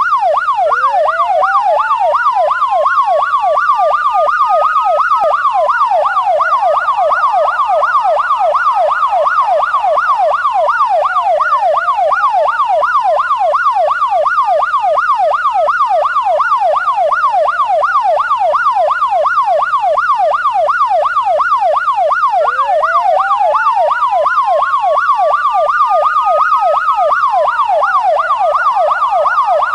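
Electronic siren sounding two patterns at once: a fast yelp, warbling up and down several times a second, over a slow wail that climbs for a few seconds and then drops, again and again.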